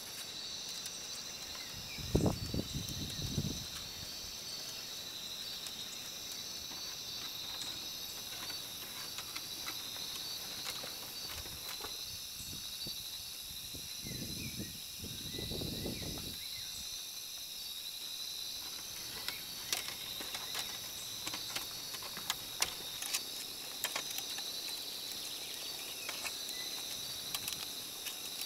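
A steady high-pitched chorus of insects. Brief louder noises come about two seconds in and again around the middle, and scattered light clicks and taps follow in the second half.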